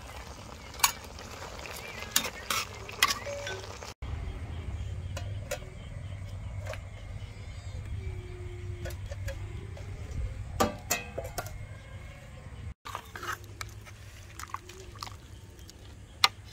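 A metal ladle knocking and scraping against a wok as a stir-fry is stirred, in separate sharp clicks. In the middle stretch a steady low rumble takes over, with only a few clicks.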